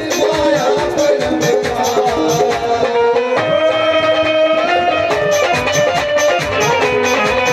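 Instrumental Indian devotional folk music: a bending melody line over a steady percussion beat.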